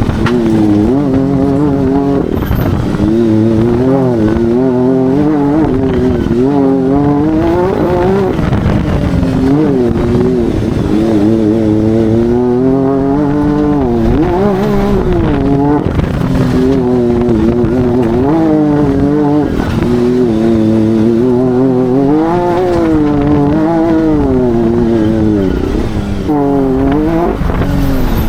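Can-Am Maverick R X RS 999T DCT side-by-side, its turbocharged three-cylinder engine driven hard: the engine pitch climbs and falls again and again, rising under throttle and dropping back at lifts and gear changes.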